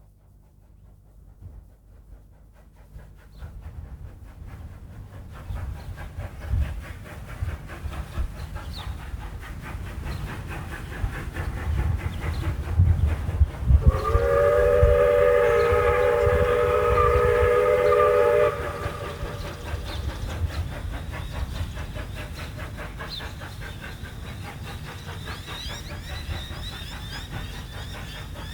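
Steam locomotive 520 working a train, its rumble and rail noise building up steadily over the first half. About halfway through it gives one long chime whistle blast of several tones, lasting about four seconds, then steady rolling rail noise with a rhythmic clatter goes on.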